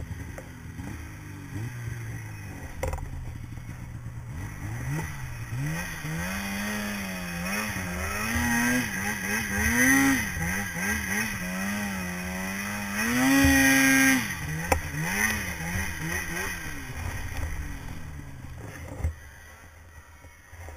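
Polaris snowmobile engine revving up and down while riding through deep powder, its pitch rising and falling again and again. It is held high and loudest for about a second a little past the middle, then eases off toward the end.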